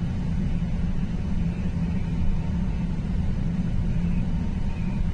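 Steady low rumble of background noise on an airport apron, with no clear events in it.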